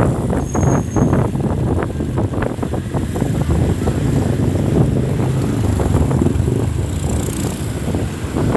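Town road traffic with a low engine rumble, mixed with wind buffeting the microphone.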